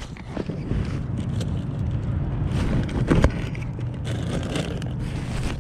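Motorcycle engine idling steadily, with rustling and a few knocks from handling nearby.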